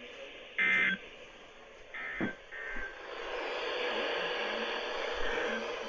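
NOAA Weather Radio SAME digital data tones received over a radio: a loud short warbling burst about half a second in and a fainter one around two seconds in, with a click. From about three seconds on, a steady rising hiss of radio static with a low hum.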